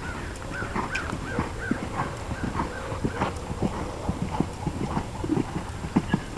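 Hoofbeats of a horse cantering on a sand arena: a steady run of dull thuds, with a few short chirps in the first second or so.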